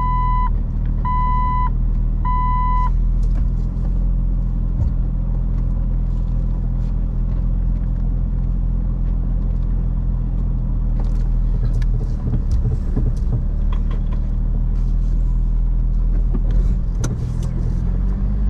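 Jeep Wrangler LJ's 4.0-litre straight-six running slowly in low gear, a steady low hum. In the first three seconds an electronic warning chime beeps three times at an even pace, then stops. Scattered light clicks and crackles follow near the end.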